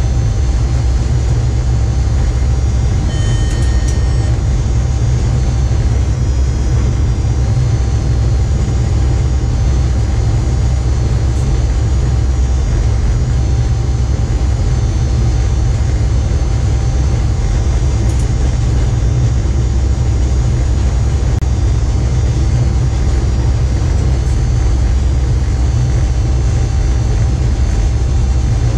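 Steady low rumble of a train running at speed, heard from inside the driver's cab, with a faint steady hum. A short two-note electronic beep sounds about three seconds in.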